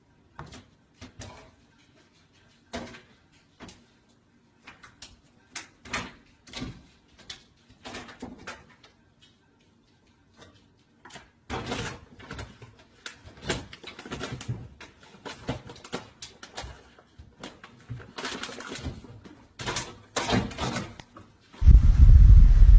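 Cat scrabbling on top of a microwave and pawing into a kitchen wall cabinet: scattered knocks, scrapes and rustles of claws on the appliance and cabinet door, sparse at first and busier in the second half. In the last second a loud low rushing noise cuts in suddenly.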